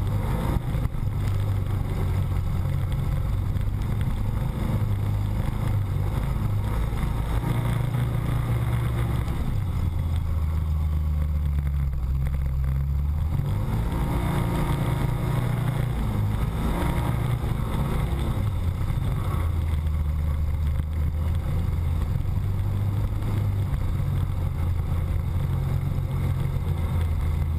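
Can-Am Commander 1000 XT side-by-side's V-twin engine running under way on a trail, heard from inside the cab, its pitch rising and falling as the throttle is worked, with a dip around the middle. Rattle and rolling noise from the trail run underneath.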